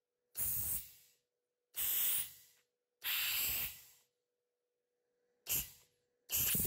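Compressed air hissing in five short blasts from the nose of a Mechatron ATC80 automatic toolchanger spindle as its pneumatic tool release is switched. Each blast lasts under a second; the third, near the middle, is the longest.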